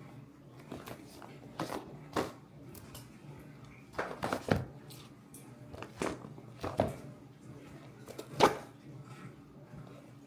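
A shipping package being handled and pulled at while someone tries to open it: a series of short rustles and knocks, the loudest about eight seconds in.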